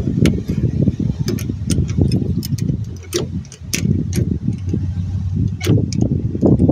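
A spanner clicking and ticking irregularly on the metal as it tightens a new bleed nipple into a rear drum-brake wheel cylinder, over a steady low rumble.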